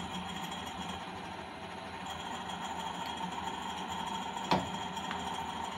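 Harrison L5A lathe's 1.5 hp three-phase motor running on a variable frequency drive: a steady hum with a thin high whine over it. A single sharp knock about four and a half seconds in, as the headstock is put into gear.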